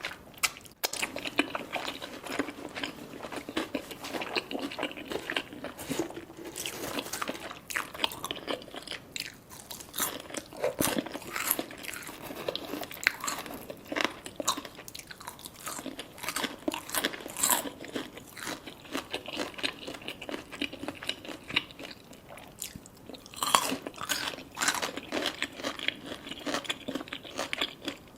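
Close-miked biting and chewing of crispy fried food: dense, irregular crunching and crackling, with no let-up.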